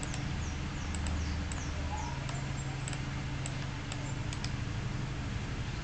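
Steady low hum of recording background noise, with a few faint computer-mouse clicks and some faint, short, high falling chirps in the first two seconds.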